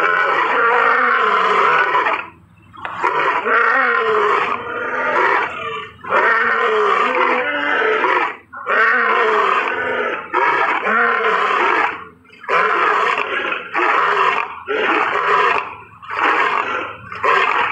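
A big cat growling and roaring over and over: about nine loud calls of one to two seconds each, with short breaks between them.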